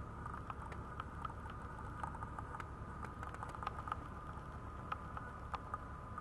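Maltese puppy's claws ticking lightly and irregularly on a vinyl floor as it shifts about, over a steady faint whine and low background rumble.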